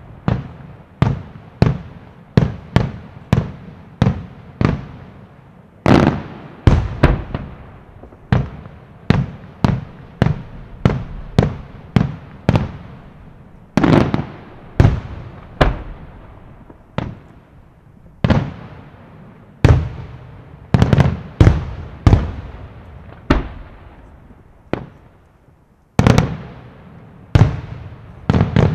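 Aerial firework shells bursting in quick succession, about one to two sharp bangs a second, each trailing off in a rumbling echo. A brief lull comes near the end before the bangs resume.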